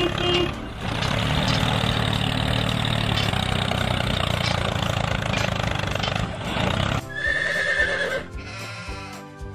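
Tractor engine sound effect running steadily. It cuts off about seven seconds in, and a short horse whinny sound effect follows, then music.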